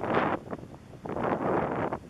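Wind buffeting the microphone in uneven gusts: a strong gust at the start, a brief lull about half a second in, then it picks up again.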